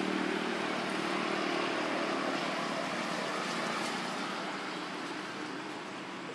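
A motor's steady drone with a low hum, strongest at first and fading over the following seconds, over an even background hiss.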